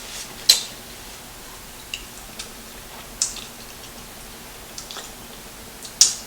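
Close-up eating sounds: three sharp, brief smacking crackles, about half a second in, near the middle and near the end, with fainter mouth clicks between.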